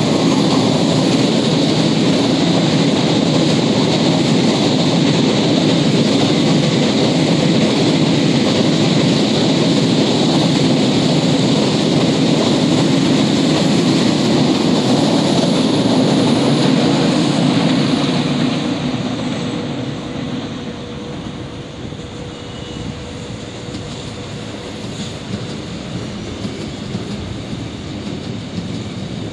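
Train passing on the tracks: a loud, steady rumble that eases off after about eighteen seconds and fades to a lower background noise.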